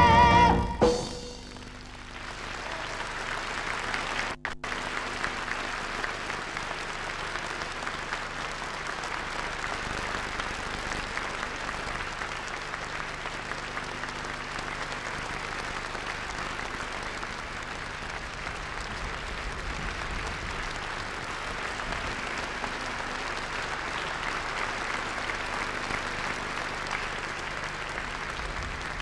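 The orchestra's final chord ends about a second in, then a large audience applauds steadily; the sound briefly drops out about four seconds in.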